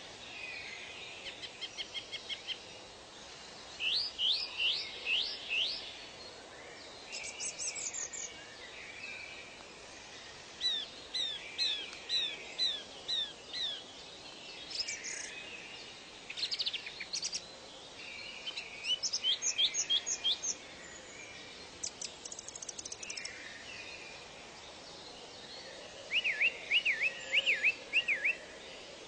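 Several songbirds singing in short bursts of quick, repeated high notes, phrase after phrase, over a faint steady background hiss.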